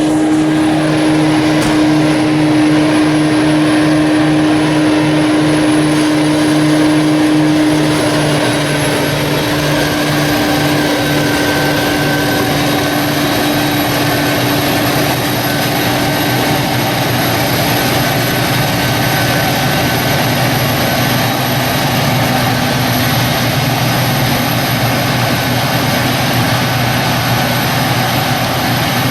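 Self-propelled forage harvester running under load while chopping maize: a loud, steady drone with a high-pitched whine, the pitch shifting slightly about eight to ten seconds in.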